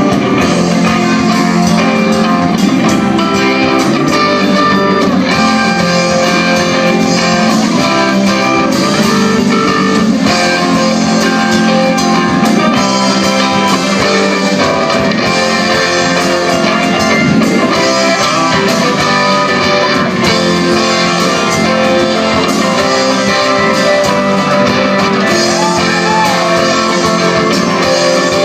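Live band playing music with guitars to the fore, steady and loud throughout.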